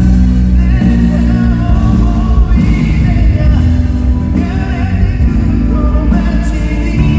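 Live performance of a song: a man singing over band accompaniment.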